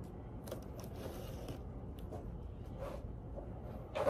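Plastic school binders and supplies being handled and shuffled: a series of short rustles and scrapes, the loudest near the end.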